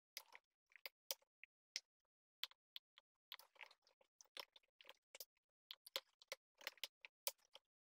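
Typing on a computer keyboard: irregular runs of quick keystroke clicks with short silent gaps, coming thicker in the second half.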